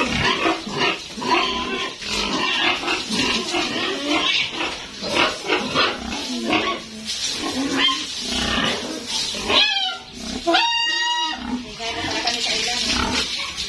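Pigs grunting repeatedly in short bursts, with one loud, high-pitched squeal lasting about a second roughly ten seconds in.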